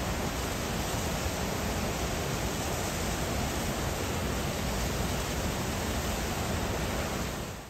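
Water pouring from a dam's spillway gates and rushing down the river below: a steady, even rush of water noise that fades out near the end.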